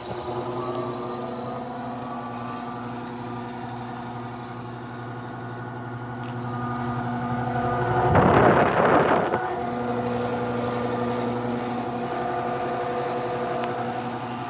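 Carrier Comfort 25HBC560A003 heat pump running through a defrost cycle: the compressor hums steadily, and about eight seconds in a loud rushing whoosh lasts a little over a second as the reversing valve shifts and the refrigerant flow reverses.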